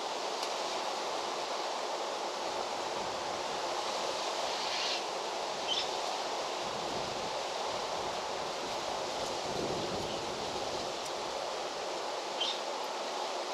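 Steady outdoor farm ambience, an even rushing hiss like wind in foliage or running water. A few brief high chirps come about five seconds in and again near the end, and a faint low rumble passes in the middle.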